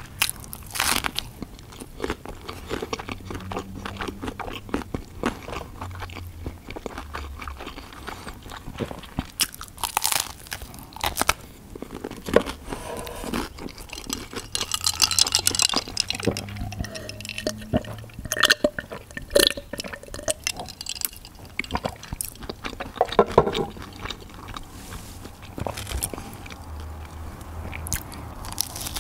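Close-miked eating: crisp crunching and chewing of pizza and breaded fried chicken schnitzel, with a fresh bite into the crumb-coated schnitzel near the end.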